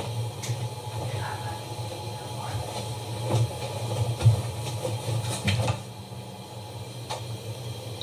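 A steady low hum with scattered short clicks and knocks; the hum fades out about six seconds in.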